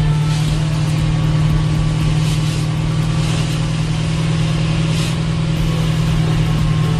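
1968 Chevrolet Camaro's 632 cubic-inch big-block V8 running at a steady, unchanging pitch, with a few brief hissing rushes of noise over it.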